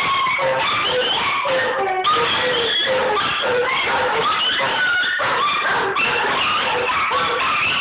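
A deerhound and other dogs howling together, with yips and whimpers mixed in; several wavering pitches overlap without a break.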